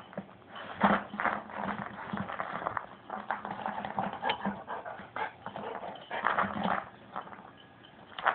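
Golden retriever gnawing and mouthing a rubber ball, with irregular chewing noises.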